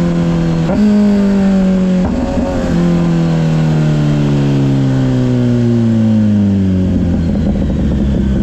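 Kawasaki Ninja 1000SX's inline-four engine heard on board as the bike slows: its revs fall steadily and jump up twice in the first three seconds as it is shifted down a gear. The revs then sink toward idle near the end, over a steady rush of wind and road noise.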